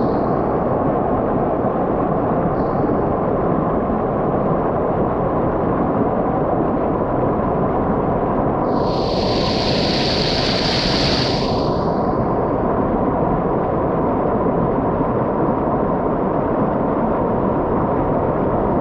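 Steady, loud rushing of La Fortuna Waterfall's water crashing into its plunge pool. Around the middle a higher hiss swells and fades over a few seconds.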